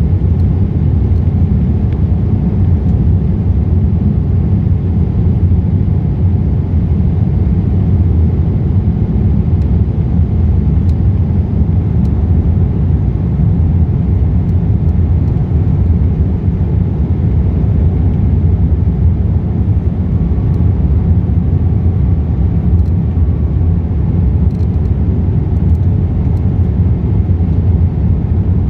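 Steady low rumble of airflow and engines inside the cabin of a Boeing 787-8 airliner in flight.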